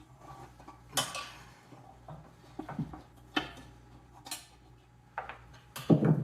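Scattered metallic clinks and knocks of hand tools and small metal engine parts being handled during disassembly. There are about five separate knocks, the loudest near the end.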